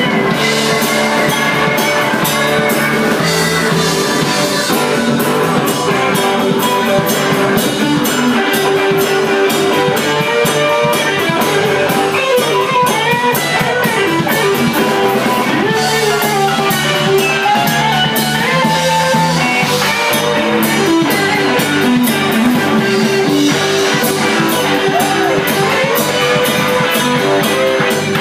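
Live rock band playing at a steady loud level: electric guitar, electric bass and drum kit.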